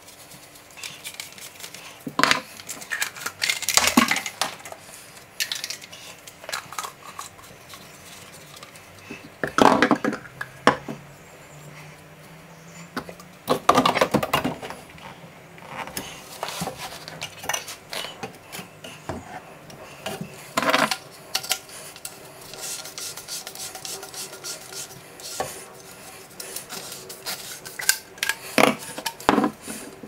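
White plastic waste-pipe fittings being handled and fitted together. Irregular clicks, knocks and clatters come in several bursts as the T-piece, connector and trap parts are pushed and tightened into place.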